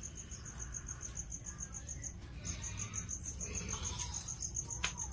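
A cricket chirping in a fast, even train of high pulses, about eight a second, pausing briefly about two seconds in, over a low background rumble. A sharp click near the end.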